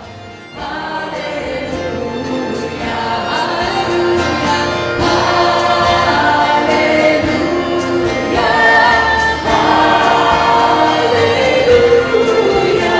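A choir singing, coming in about half a second in and growing louder.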